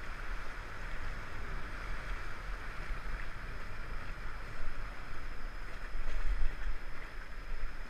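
Steady rush of river water around a raft, with a low wind rumble on the microphone.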